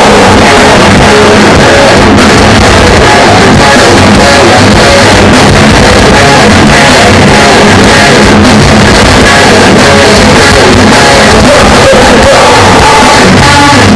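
Live rock band playing loudly through stage speakers: guitars with a singer's vocals.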